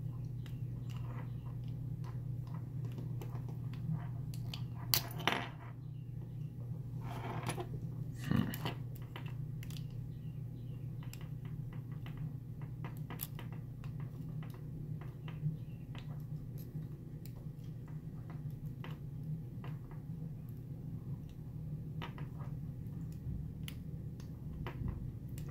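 Lock pick and tension wrench working the pins of a Master Lock lockout padlock, light metallic ticks and scrapes scattered throughout, with louder rattles about five and eight seconds in. A steady low hum runs underneath.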